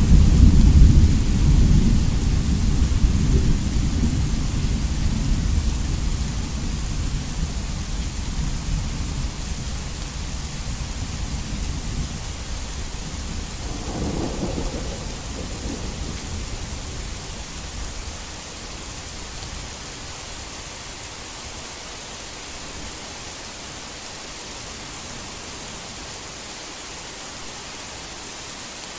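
A long roll of thunder over heavy rain, fading away gradually, with a second, smaller rumble about halfway through. After that only the steady hiss of rain is left.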